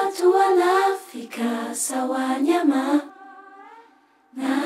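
A solo voice singing a slow melody without accompaniment, holding and bending its notes. The line fades out about three seconds in, there is a brief pause, and the singing starts again near the end.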